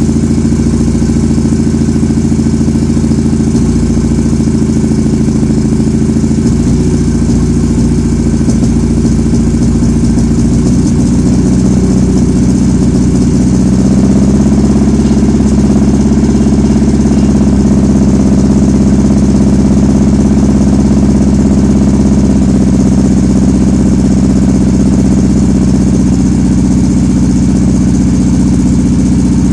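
1984 Saab 900's eight-valve turbocharged four-cylinder engine running at a steady idle. About fourteen seconds in, its speed picks up slightly and it gets a little louder.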